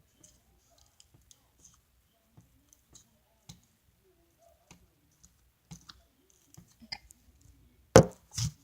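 Slime being poked and pressed, giving small scattered clicks and pops that come more often in the second half, with two louder sharp pops near the end.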